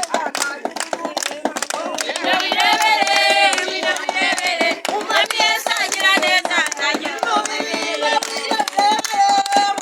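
A group of voices singing together, with rhythmic hand clapping throughout.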